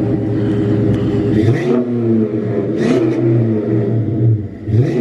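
Chrysler 300C's 5.7-litre Hemi V8 idling and revved in three quick throttle blips, about a second and a half in, around three seconds in and again at the very end.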